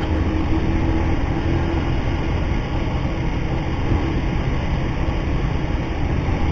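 Motorcycle engine running steadily at cruising speed, mixed with a steady rush of wind and road noise on the microphone.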